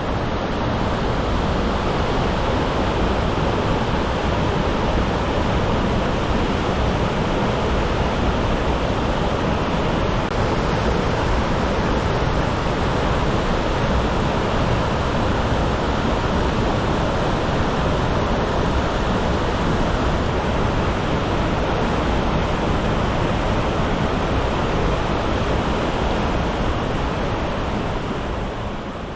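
Waterfall swollen with high water: a loud, steady rush of falling water that fades out near the end.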